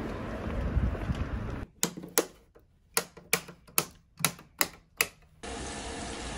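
Wall light switches clicked on one after another: about eight sharp clicks over some three seconds, with quiet between them. Before them there is steady outdoor street noise, and near the end a steady rush of tap water running into a sink begins.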